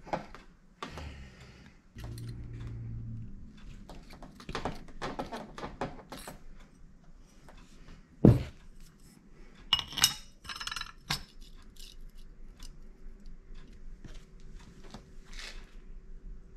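Metal clutch parts (a ring gear and billet clutch basket with its small bolts) clinking and knocking as they are handled and fitted together on a workbench. There is one loud thunk about eight seconds in, then a ringing metal clatter about two seconds later.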